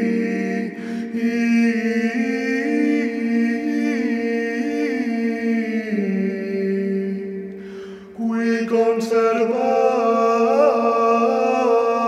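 Small male vocal ensemble singing plainchant a cappella: a steady held low drone under a melismatic melody line. The drone steps down about halfway through, and the singing fades to a brief breath near eight seconds before resuming.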